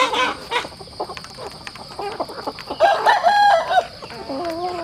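Chickens clucking as they feed, with sharp taps of beaks pecking at a trough. About three seconds in, one bird gives a louder drawn-out call lasting about a second.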